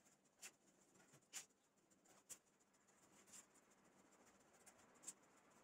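Near silence broken by about five faint, light taps as baked puff-pastry poppy-seed rolls are set one by one into a glass bowl.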